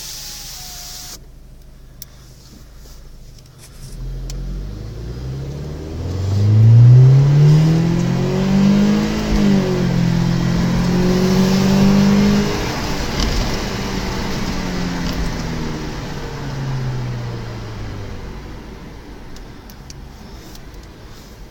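Audi car engine accelerating: the engine note climbs over several seconds and is loudest early in the climb. It dips briefly, holds at a higher pitch, then falls away and fades.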